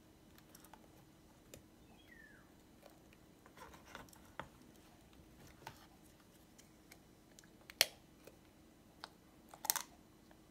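Slime being pressed and handled in a clear plastic tub: scattered soft clicks and sticky pops, with two louder snaps about two seconds apart near the end.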